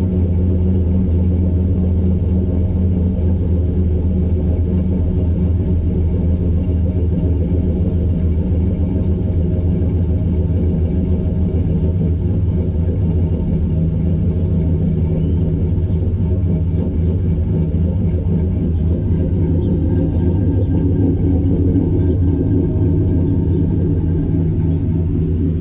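2013 Chevrolet Silverado's V8 with a stage 2 cam idling steadily on a cold start, heard at the exhaust tip of a cat-deleted straight-pipe system with a Flowmaster muffler. The cam gives only a little chop, which the muffler largely covers.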